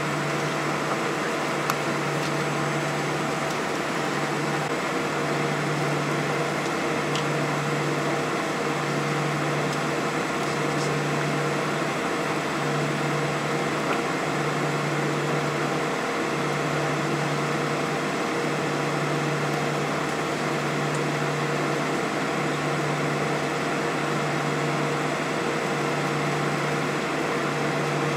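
Steady airliner cabin noise while taxiing: engines running at low taxi power and the cabin ventilation hissing. A low hum swells and fades about every two seconds.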